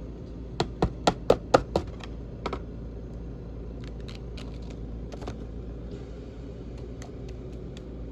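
Sharp, hard clicking taps: a quick run of about six in just over a second, then a single one and scattered fainter clicks spread through the rest.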